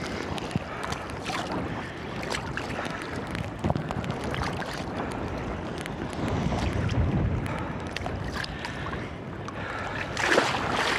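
Choppy sea water sloshing and splashing around a phone held at the surface in a bag, with wind on the microphone. There are scattered small splashes and a louder splash about ten seconds in.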